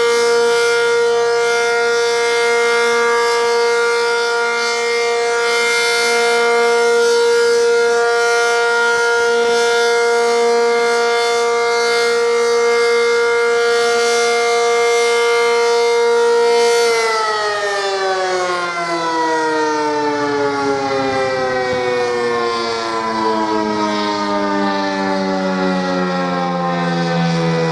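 ACA Cyclone 125 electromechanical warning siren sounding its steady Alert tone. About two-thirds of the way through it is cut off and winds down, its pitch falling steadily as the rotor slows.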